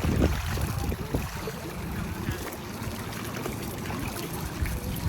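Water lapping and splashing lightly and continuously, with no big splashes.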